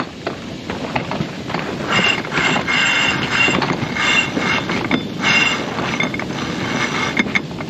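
Sailboat winch being worked to bring in the staysail, its pawls ratcheting and the line squealing on it in a run of short pulls.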